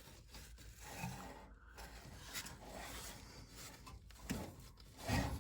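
Soft rubbing and scraping handling noises with a few light clicks, from hands working around an air-conditioning evaporator coil while feeling for an oily refrigerant leak.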